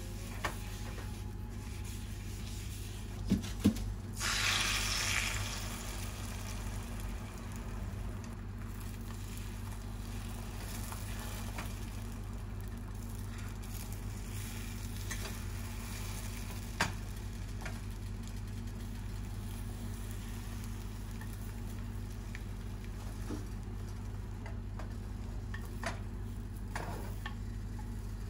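Beaten egg sizzles loudly in a hot oiled rectangular tamagoyaki pan about four seconds in, just after two sharp knocks, then cooks on with a quieter sizzle while wooden chopsticks stir and tap the pan now and then.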